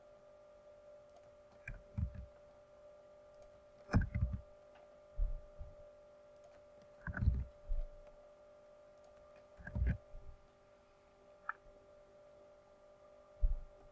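Scattered computer mouse and keyboard clicks with dull desk thumps, one every one to three seconds, over a steady electrical hum.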